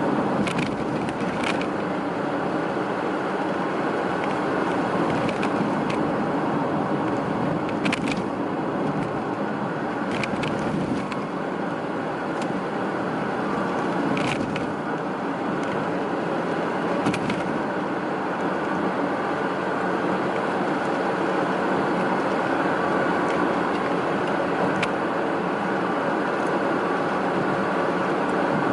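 Steady road and tyre noise heard from inside a moving car, with a few brief sharp clicks now and then.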